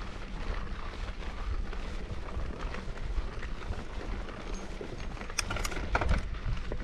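Wind buffeting the camera's microphones over the crunch and rattle of a mountain bike rolling on a dirt trail, with a burst of sharp clattering rattles about five seconds in.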